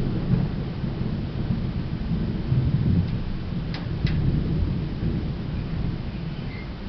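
Distant thunder rumbling on and off through a thunderstorm. Two small sharp clicks come about halfway through.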